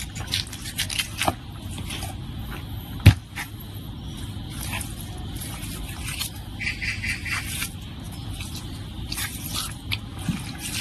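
Knife cutting and scraping along the bone as a pork hind leg is deboned: a run of short, uneven scrapes and slices, with one sharp knock about three seconds in.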